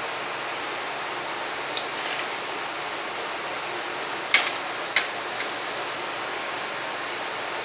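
Steady background hiss with a few sharp clicks and taps from handling things in the kitchen: light ones about two seconds in, then two louder clicks about half a second apart, about four and a half seconds in.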